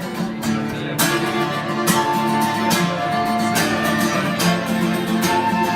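Instrumental song intro: acoustic guitar strummed in a steady rhythm, with long held melody notes above it.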